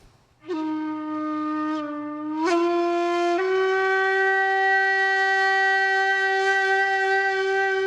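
A horn-like wind instrument blown in one long note: it starts about half a second in, sags slightly, lifts, then steps up to a higher pitch and holds it steadily.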